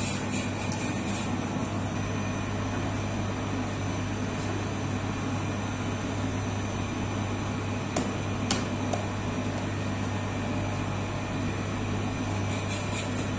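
Electric bakery dough mixer running steadily, its hook turning through a large bowl of bread dough, with a constant low hum. Two short clicks about eight seconds in.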